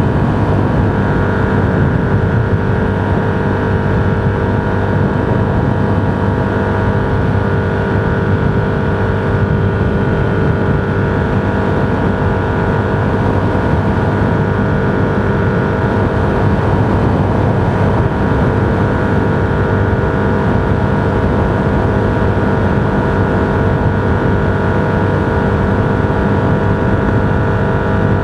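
Vehicle cruising at a steady highway speed of about 80 mph: an even engine drone over a constant rumble of road noise, with no change in speed.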